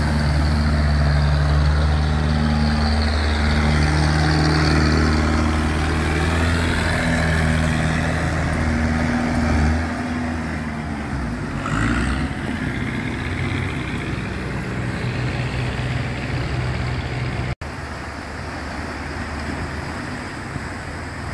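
Small boat's engine running hard at close range as it pushes up against the current through the sluice gate. Its steady note weakens after about ten seconds, leaving the rush of turbulent water through the gate. A brief dropout comes near the end.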